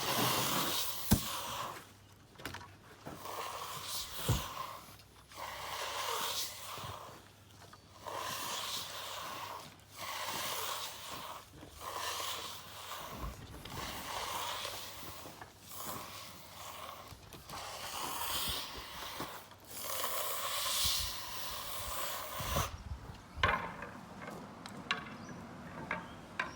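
Hand finishing tool scraping across a concrete slab in repeated strokes, each about one to two seconds long with short pauses between.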